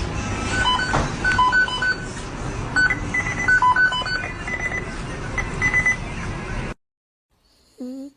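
A run of short electronic beeps at several pitches, some singly and some in quick pairs, over a steady background noise. This cuts off suddenly near the end, followed by one brief gliding squeak.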